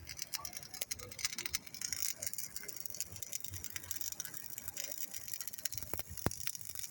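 Electric arc welding: the arc crackling and sputtering in a fast, irregular stream of small pops, with a few sharper clicks near the end.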